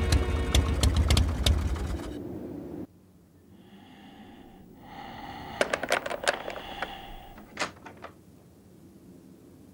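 Background music ends about two seconds in. Then a motel room door lock is worked: a run of sharp clicks and rattles of key and handle, over a faint steady tone.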